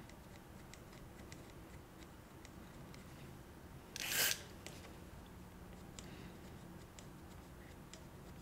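A short hiss of DeoxIT contact cleaner sprayed from an aerosol can, about four seconds in, into the faders and pots of a Mackie mixer board to clean out their crackling. Around it come faint scattered clicks and rubbing from handling the board and tissue.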